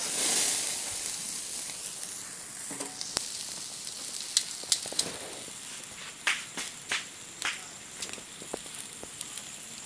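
Whole koral fish (barramundi) sizzling on a wire grill over a charcoal fire. A loud burst of hissing right at the start dies down over a couple of seconds into a steady sizzle, with scattered sharp pops and clicks through the middle.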